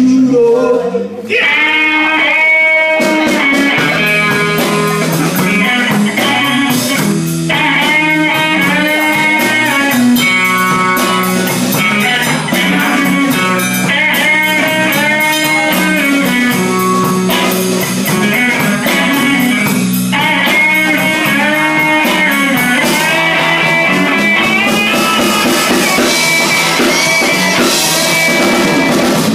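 Live blues-rock band playing loudly: electric guitars, bass guitar and drum kit, with a lead line full of bent notes over a steady bass line.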